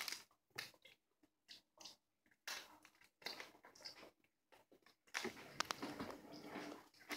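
Faint chewing and short rustles of foil and plastic snack wrapping: scattered brief crackles with quiet gaps between them, busier from about five seconds in.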